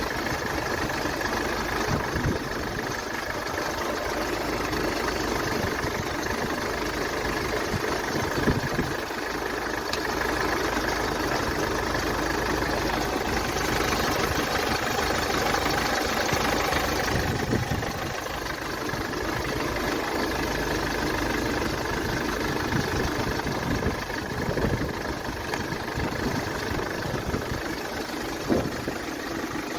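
Sprinter van engine idling steadily while it warms up after a thermostat replacement, with no coolant leaking. A couple of short knocks sound, about eight seconds in and near the end.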